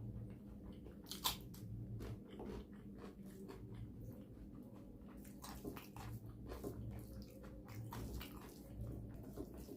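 Close-up eating sounds: a person chewing and biting food, with irregular wet mouth clicks and a sharp click about a second in.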